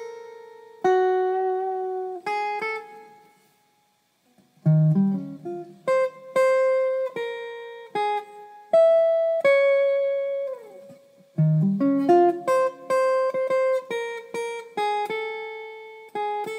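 Solo guitar playing a slow melody of single plucked notes that ring and fade. There is a pause of about a second near the start, and about ten seconds in one note slides down in pitch.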